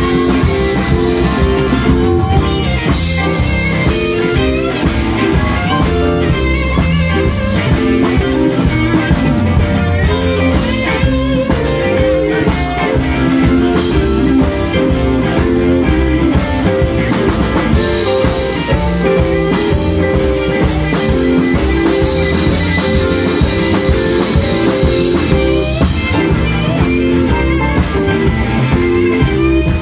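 Live electric blues band playing an instrumental passage: several electric guitars over a drum kit, loud and steady throughout.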